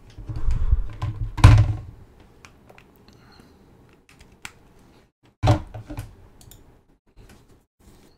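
Computer mouse clicks and keyboard-like taps at a desk, mixed with a few heavier thumps. The loudest thump comes about a second and a half in, and another cluster comes about five and a half seconds in.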